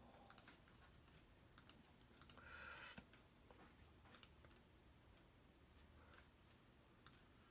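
Faint computer mouse clicks, some in quick pairs, over near-silent room tone, with a soft brief rustle about two and a half seconds in.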